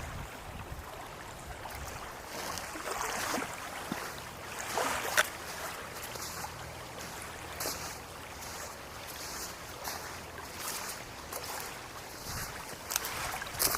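Strong gusty wind, with water lapping and a few light clicks, the sharpest about five seconds in.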